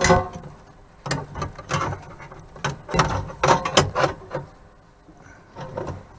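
Irregular clusters of sharp plastic clicks, knocks and rattles as the stereo amplifier and its mounting clips are worked loose by hand.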